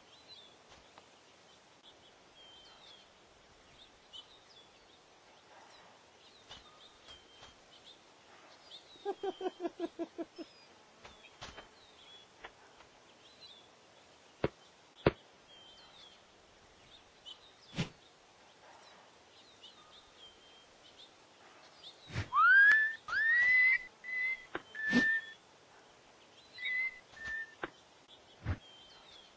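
Faint bird chirps in the background, broken by scattered single clicks and a quick run of about nine low buzzy pulses around nine seconds in. Later come several rising, scooping whistled notes, the loudest sounds, followed by a few shorter whistled notes.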